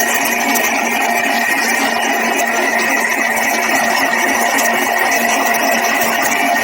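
Electric mixer running steadily at speed, beating cake batter of creamed butter, sugar, eggs, milk and vanilla.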